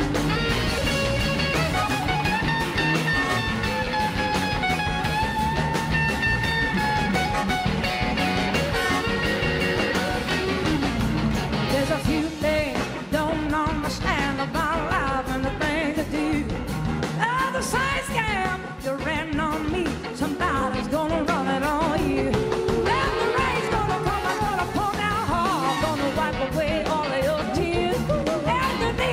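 Live blues-rock band playing: an electric guitar lead with long held and sliding notes over drums and bass, and a woman's singing joining in about halfway through.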